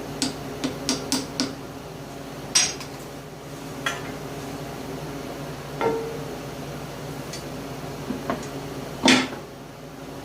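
Metal tools and small parts clinking and knocking as they are handled: a quick run of light clicks at the start, then scattered single knocks, one ringing briefly, and the loudest knock near the end.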